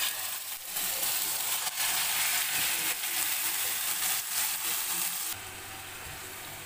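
Yogurt-marinated chicken pieces sizzling loudly in hot oil in a frying pan as they go in, with a few knocks from a silicone spatula pushing them about. About five seconds in, the sizzle drops to a quieter, steady level.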